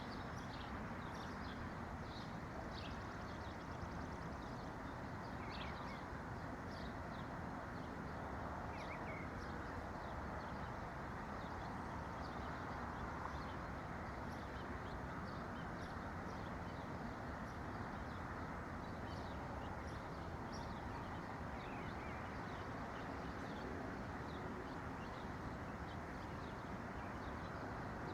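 Small songbirds chirping and twittering in many short, high calls, over a steady low background noise.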